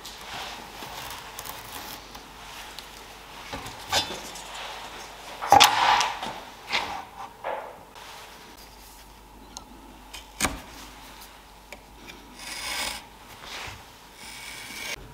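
Handling sounds on a wooden workbench as a steel ruler and masking tape are worked along a pine board and marked against: scattered knocks, taps and scrapes. The loudest is a clatter about five and a half seconds in, with a brief rubbing scratch near the end.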